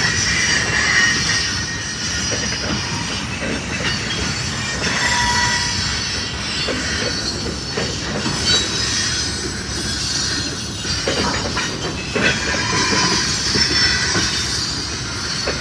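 A slow freight train of flatcars rolls past. The steel wheels click and knock over the rail joints, and short high-pitched wheel squeals come and go over a steady rolling rumble.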